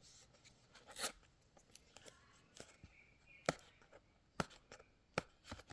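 Hands working at the sealed packaging of a phone case: faint scratching and rustling of cardboard and plastic, with a few sharp clicks scattered through it.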